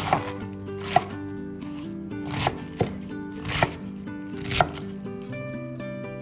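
Knife chopping food on a cutting board: about six separate cuts, roughly a second apart, over background music with held notes.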